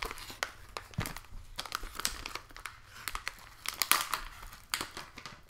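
Plastic anti-static bag crinkling and rustling in irregular crackles as hands work a circuit board out of it.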